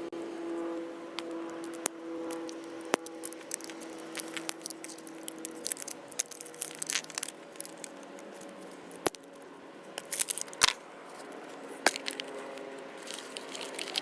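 Hands opening a plastic surprise egg and handling its contents: irregular sharp plastic clicks, crinkles and rustles, busier from about four seconds in. A faint steady hum lies under the first six seconds.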